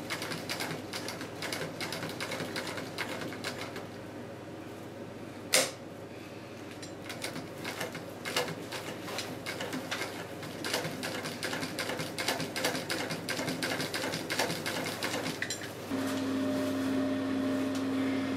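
Singer semi-industrial sewing machine stitching binding tape onto ballistic nylon: fast, even runs of needle strokes. It stops briefly in the middle, where there is one sharp click, then stitches again. A steady hum takes over near the end.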